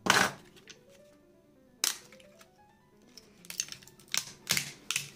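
Sharp plastic snaps and clicks from a budget smartphone being taken apart by hand. There is a loud snap at the start, another just before two seconds in, and a quick cluster of snaps in the last second and a half as the plastic inner frame is pried loose. Soft background music plays underneath.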